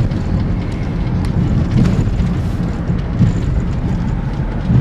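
Steady low rumble of a car on the move: engine and tyre noise heard from inside the cabin.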